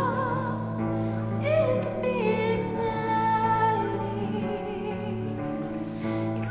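Slow, sustained music: a held low chord under a high singing voice that holds long notes, sliding down from one note to the next.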